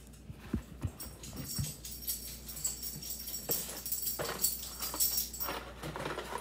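A few soft knocks near the start, then dry penne pasta rattling inside its cardboard box as the box is handled and opened.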